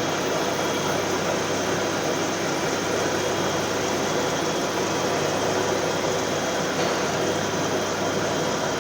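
CNC lathe running while machining a metal flange: a steady machine noise with a constant low hum.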